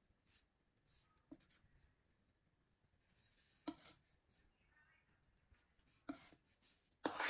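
Metal offset spatula scraping across cake frosting in a few short, faint strokes, the loudest near the end.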